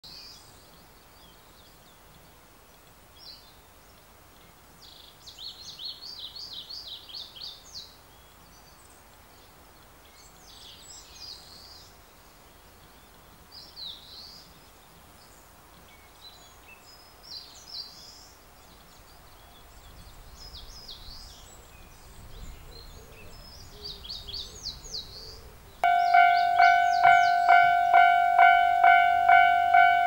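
Small birds singing in short rapid trills and chirps. About four seconds before the end, a Japanese level crossing's electronic warning bell starts ringing, a steady clanging tone struck about twice a second, signalling a train approaching.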